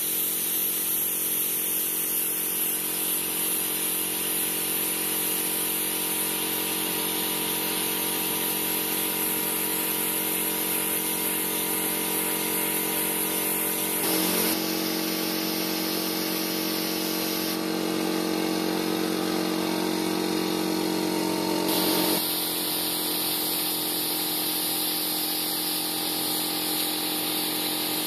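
Electric air compressor running steadily with a strong hiss of air from a spray gun spraying clear coat. The tone changes abruptly about halfway through and again a little past two-thirds of the way.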